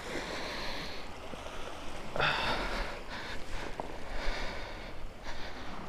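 A man breathing hard through his nose and mouth in repeated noisy breaths, about one a second, while climbing over rocks, with a low rumble of wind on the microphone.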